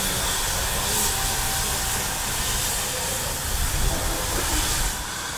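Class 52 steam freight locomotive 52 7596 standing still with steam hissing steadily from it, over a low rumble.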